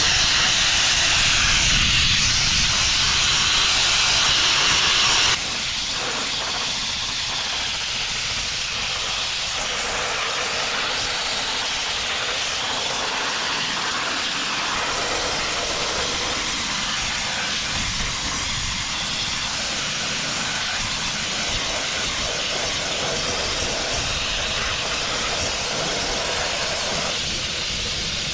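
Abrasive blasting nozzle hissing steadily as it strips rust and paint off a lorry's steel wheel and chassis. The hiss drops suddenly in loudness about five seconds in, then carries on evenly.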